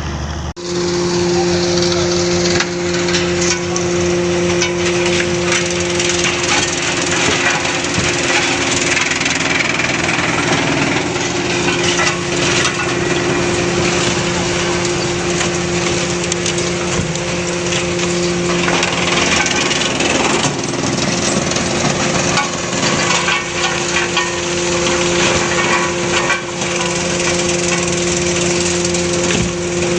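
An industrial wood-crushing machine running under load: its motor and rotor give a steady hum while wood is broken up inside with a dense, continuous crackling and splintering.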